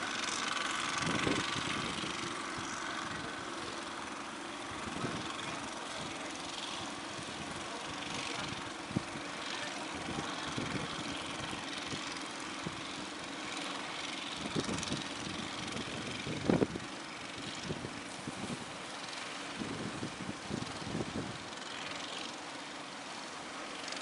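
Outrigger fishing boats' engines running steadily over the noise of breaking surf, with a few short thumps, the loudest about two-thirds of the way through.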